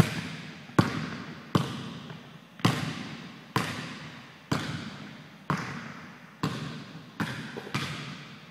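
A basketball being dribbled on a hardwood gym floor, about one bounce a second, quickening slightly near the end. Each bounce rings out with a long echo in the gym.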